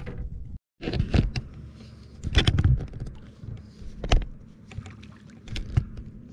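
Knocks and thumps on a fiberglass fishing boat: one about a second in, a louder cluster around two and a half seconds, then single knocks near four and near six seconds, over a low steady background. The sound drops out completely for a moment just after the start.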